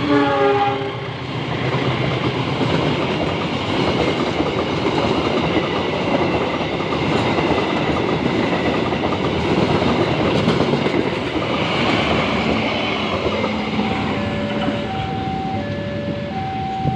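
A locomotive horn cuts off about a second in, then a train passes with a steady rush of wheel-on-rail noise and clickety-clack. Near the end a two-tone electronic beeping starts, alternating high and low.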